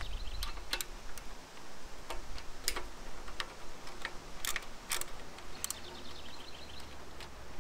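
Scattered sharp metallic clicks and clinks of a hand tool working a Yamaha Virago 535's fuel-tank mounting bolt, with a short quick run of faint ticks about three-quarters of the way through.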